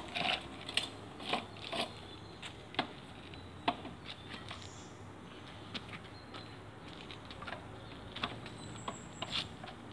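Scattered light clicks and taps at irregular intervals over a faint steady background hum, from a toddler handling a small plastic toy tricycle on paving stones.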